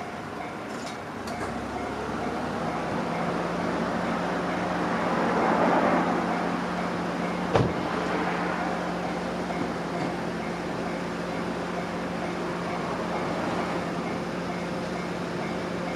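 A vehicle passing by, its rushing noise swelling to a peak about six seconds in and then fading, over a steady low hum, with one sharp knock about a second and a half after the peak.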